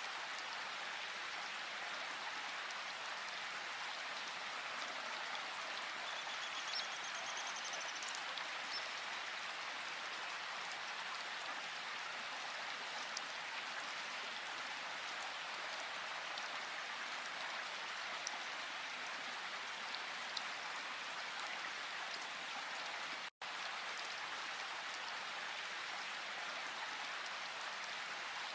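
Steady rushing water of a river and waterfall, with a few faint bird chirps about six to eight seconds in. The sound cuts out for a split second about two-thirds of the way through.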